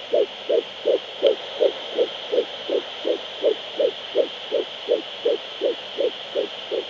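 Fetal heartbeat at 11 weeks 5 days through an ultrasound Doppler: fast, even pulses, about two and three-quarter beats a second (around 165 a minute), over a steady hiss. That rate is normal for this stage of pregnancy.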